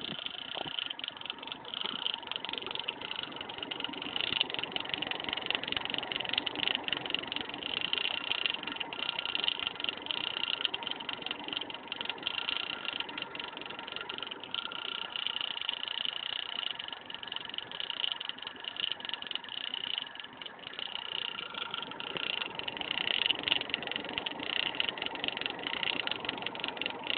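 Cooling fan of an AQTIS AP-1000GLX80+ PC power supply making a continuous, rapid rattling clatter (a "karakara" sound), an abnormal noise from the fan. The rattle is fairly loud and keeps on without a break.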